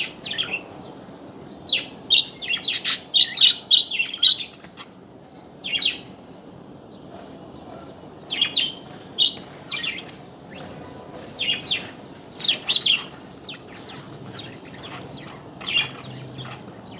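Small birds chirping in short twittering bursts, with a busy flurry in the first few seconds and further bursts later, over a steady low background noise.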